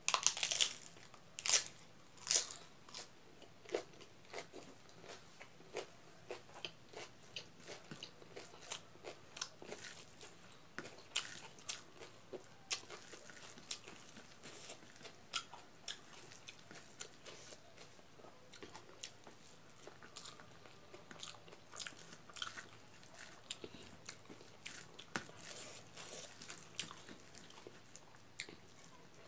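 Close-up chewing of a mouthful of rice with crunchy vegetables, eaten by hand: a string of short crunches and wet mouth clicks, loudest in the first few seconds, then lighter, irregular clicks.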